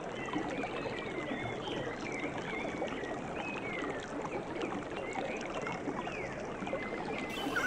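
Steady rush of falling water from a mountain cascade, with small birds chirping repeatedly over it.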